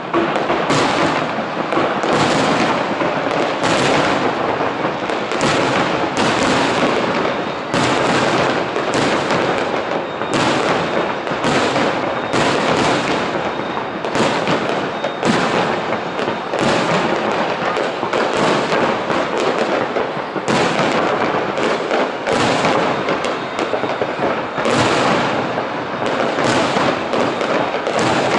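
Aerial firework shells bursting one after another, about one a second without a pause, over a continuous crackle and rumble of the display.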